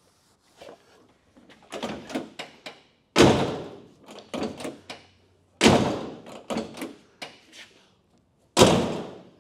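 Second-generation Chevrolet Camaro door being shut three times, each time with a loud slam. Between the slams come smaller latch clicks and knocks as it is opened again. The door is being test-closed after its hinges and striker were adjusted for alignment.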